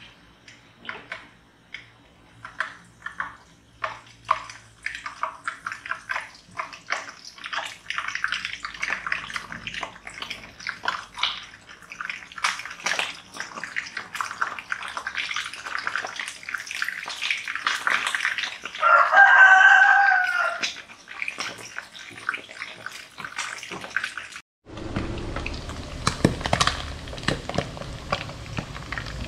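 Pieces of mackerel tuna frying in hot oil in a wok, crackling and spitting, the pops growing thick and fast as the pieces go in. A loud pitched call lasting about a second and a half cuts in about two-thirds through. Near the end it changes to a steadier sizzle with a low hum.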